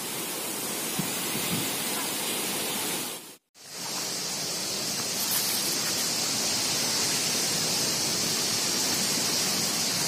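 Steady rush of a forest stream's flowing water. It cuts out briefly about three and a half seconds in, and after the break a steady high hiss sits over it.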